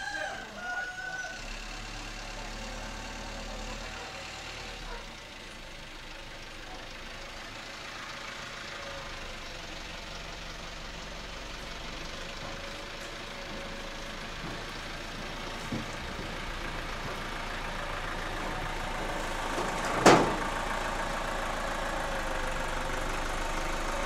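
Isuzu light flatbed truck's diesel engine running as the truck drives up, growing steadily louder as it nears. A single sharp bang about twenty seconds in is the loudest sound.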